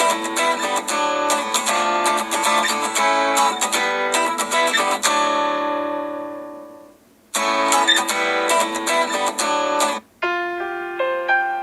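Samsung Galaxy S6 Edge stock ringtone: a plucked acoustic-guitar melody whose last chord rings out and fades to near silence, then a new guitar phrase starts about seven seconds in. Near the end it breaks off and a different ringtone of sparser plucked notes begins.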